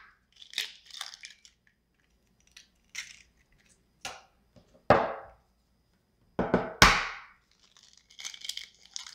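Eggs being cracked open over a stainless steel mixing bowl: several sharp taps, the loudest about five and seven seconds in, then a crackle of shell being pulled apart near the end.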